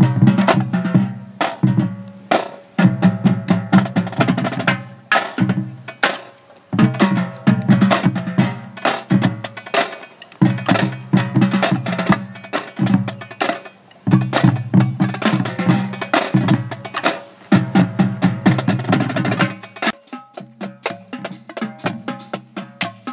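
Marching drumline of snare drums, tenor drums and pitched bass drums playing a rhythmic cadence in phrases with short breaks. Near the end it thins to lighter, quieter strokes without the bass drums.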